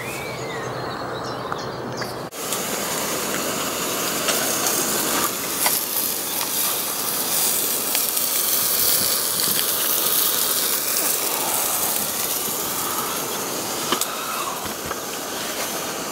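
Sausages sizzling in a lidded camping pan: a steady hiss that starts suddenly about two seconds in.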